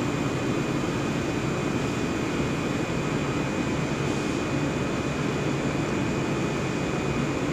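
HDPE blown-film extrusion line running: a steady machine hum and rush with a thin, constant high whine over it.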